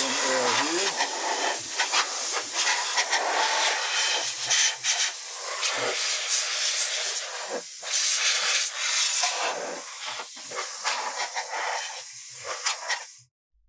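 Compressed-air blow gun hissing in long, uneven blasts as it blows leftover foam crumbs out of a heater housing. The hiss dips briefly twice and cuts off suddenly near the end.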